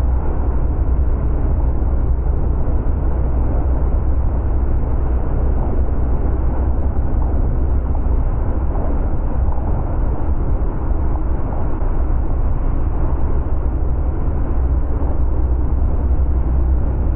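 Bass boat with a Mercury 250 Pro XS four-stroke outboard running steadily at cruising speed, about 39 mph at 4200 rpm: a steady rush of wind and running noise with a deep rumble buffeting the microphone.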